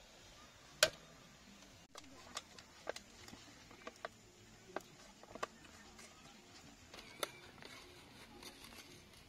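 A single sharp click about a second in from the knob of a portable butane camping stove, then scattered light taps, crinkles and rustles as the paper lid of a cup of instant noodles is peeled back and its seasoning sachets are handled.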